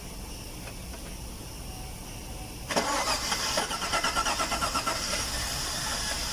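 2015 GMC Sierra's 6.2 L V8, freshly fitted with new fuel injectors, cranked by the starter about two and a half seconds in and starting up, the quick pulsing of the cranking easing into steady running.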